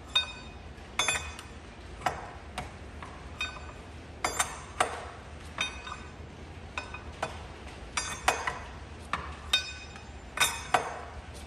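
Steel tools clinking and tapping on metal as a truck's clutch fan is worked off its water pump shaft after its nut was hammered loose. Sharp metallic clinks, each with a short ring, come irregularly, one or two a second, with several louder strikes near the end.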